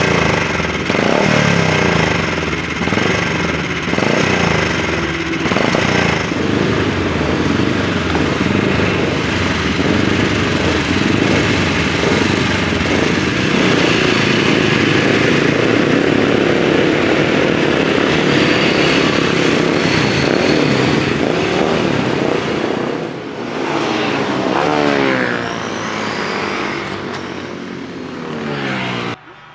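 Classic racing motorcycle engines running loud, revved up and down several times in quick succession, with a dense steady engine din through the middle and more rising and falling revs near the end. The sound cuts off abruptly just before the end.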